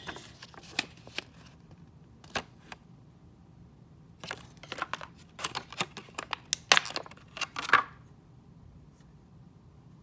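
Cardboard packaging and a small plastic adapter being handled: short rustles, taps and clicks, a few in the first seconds and a busy cluster between about four and eight seconds in.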